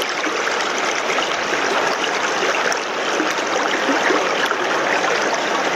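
Stream water rushing steadily, with the current running through a landing net held in it.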